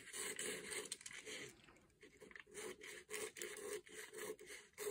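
Scissors cutting through pattern paper: a run of repeated faint snips.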